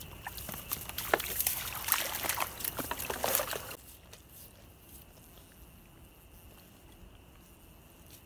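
Rustling and crackling of dry grass and brush, with small splashes of shallow water, for about the first four seconds. Then it drops to a quiet background with a faint steady high tone.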